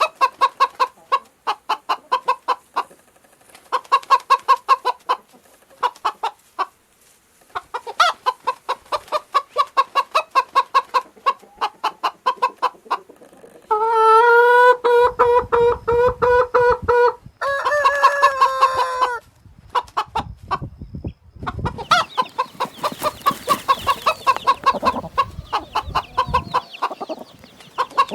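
Chickens clucking in quick runs of short repeated calls. About halfway through come two long, drawn-out calls of about three and two seconds, after which the clucking picks up again.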